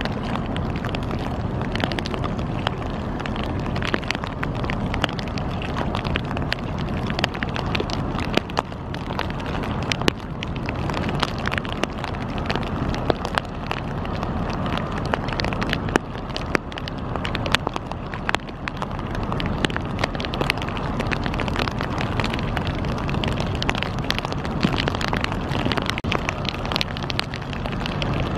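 Wind buffeting the microphone: a steady rough rush with many small crackles.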